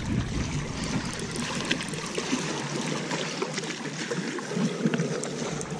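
Small waves lapping and trickling among shoreline rocks, with a few faint clicks.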